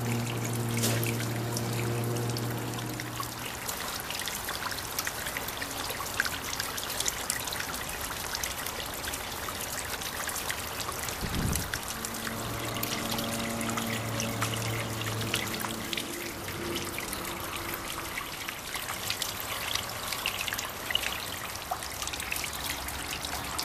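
Running water trickling and splashing steadily, with many small splashes throughout.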